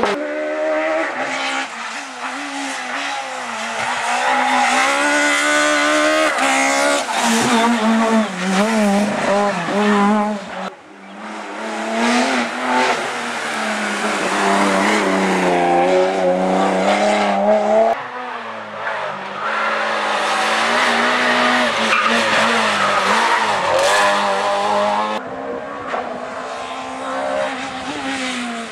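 Rally cars driven hard on a twisting tarmac road, passing one after another: the engines rev up and down as the drivers work the throttle and shift gears through the bends.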